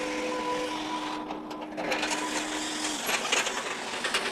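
Steady machine whine, one held tone that stops about three seconds in and starts again near the end, over a rattling noise with a few sharp clicks and knocks.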